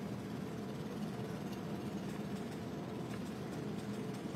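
Steady hum of an idling engine over outdoor street noise.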